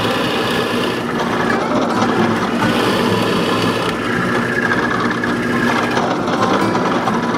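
Drill press motor running while its bit bores into a thick wood board, chewing out chips. The sound holds steady, with small dips as the bit is fed in and withdrawn.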